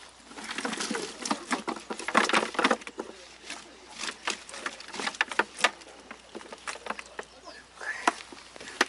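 Irregular clicks, knocks and rustling of fishing gear being handled: a wire-framed mesh keep net of cutlassfish and a hard plastic tackle box, with fish tongs at work.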